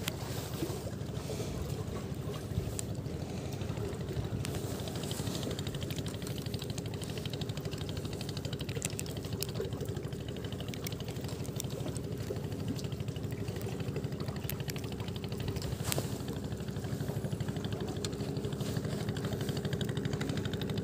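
A boat engine running steadily at an even pace, with a single sharp click about sixteen seconds in.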